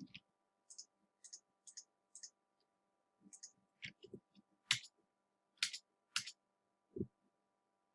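Computer mouse clicking: a run of small clicks, several in quick pairs, then a few louder sharp clicks and some soft low thumps in the second half, over a faint steady electrical hum.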